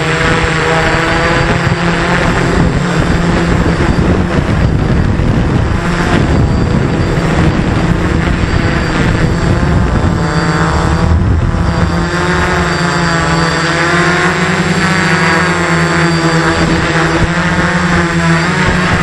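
Quadcopter's electric motors and propellers whining, heard close up from its onboard camera. Several tones waver up and down as the throttle changes, over a rumble of wind and prop wash.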